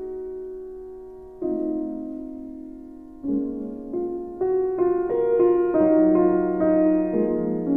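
Slow solo piano music: soft sustained chords that change every couple of seconds, then a gentle melody of quicker single notes coming in about halfway through and growing a little louder.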